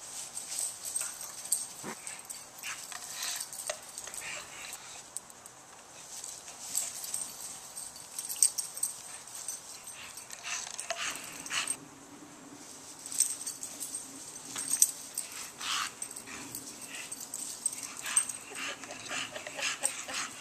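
English bulldog making many short sounds in irregular bursts as it chases and snaps at soap bubbles.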